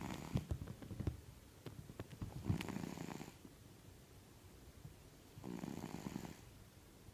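A cat snoring heavily in deep sleep: quick pulsing breaths in the first second, then two snores of under a second each, about three seconds apart.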